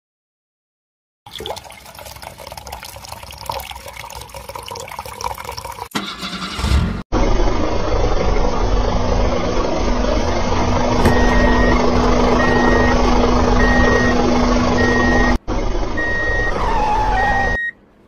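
Dubbed truck sound: a loud steady engine-like rumble with a low hum, and a reversing alarm beeping about once a second in the second half, over a rushing noise like running water.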